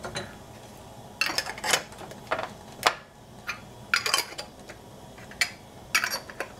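Metal jar lids being set onto filled glass jars: a series of sharp, irregularly spaced clinks and taps of metal on glass.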